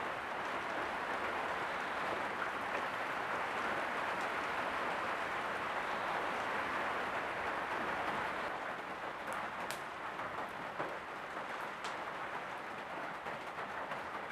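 Steady hiss of steam from a steamer used for bending wooden bow limbs, with a few faint ticks in the second half.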